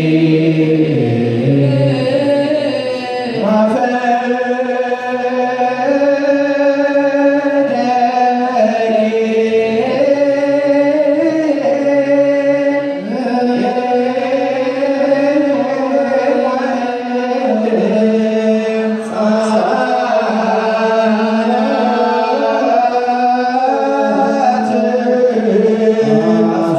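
Ethiopian Orthodox liturgical chant: male voices singing long, drawn-out ornamented lines in Ge'ez, holding each note for a second or two.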